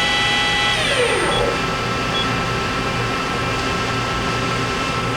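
Mori Seiki NL-2500SY turning center's sub spindle whining at 3,200 RPM, then braking to a stop about a second in, its pitch gliding down. A steady machine hum continues underneath.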